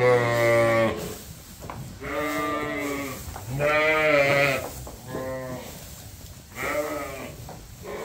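Sheep bleating, about five calls in turn, the first and the one about four seconds in the loudest: hungry sheep calling for feed at the trough.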